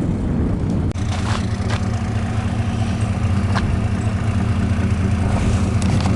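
A skid steer's engine running steadily, with a few short clanks over it as the disabled machine is pushed onto the trailer.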